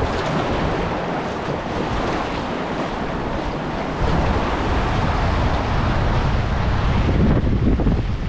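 Rushing river rapids and paddle splashes around a whitewater kayak, with wind buffeting the microphone. It gets louder and rumblier about halfway through as the kayak runs into rougher water.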